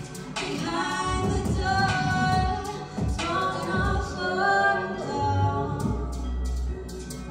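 A woman singing live into a microphone, long held notes that rise and fall, with a low bass note underneath in the second half.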